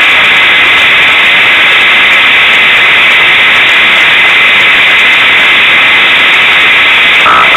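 Unimog 404 S trial truck's engine and drivetrain heard from inside the cab while crawling slowly over rough ground. It comes through as a steady, loud, hissing roar, heavily distorted by the overloaded onboard microphone. A brief high tone sounds near the end.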